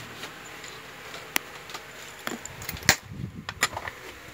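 Handling of a metal spoon lure over plastic-wrapped packets: a few separate sharp clicks and taps, the loudest about three seconds in.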